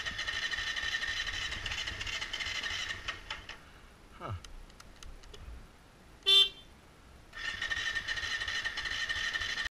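KTM 350 EXC-F's electric starter whining as it cranks without the engine catching, in two stretches, with one short toot of the horn between them, the loudest sound. The engine quit when the horn was pressed and won't restart, which the owner puts down to a probably blown fuse and possibly bare wires.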